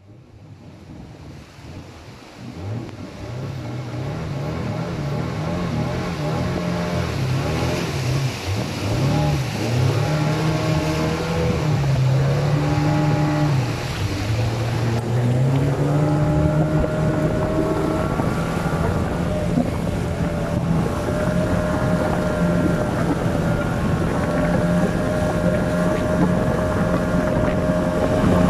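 Longboat's outboard motor running, its pitch rising and falling through the first half and then holding steady, over the rush of fast river water and wind on the microphone. The sound fades in over the first few seconds.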